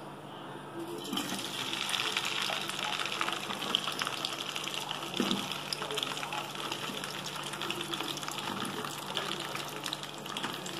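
Cut okra pieces sizzling in hot oil in a kadai, with fine crackling. The frying starts about a second in, as the okra goes into the oil.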